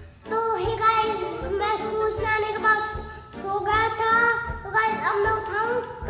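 A child singing a melody over background music with a regular beat.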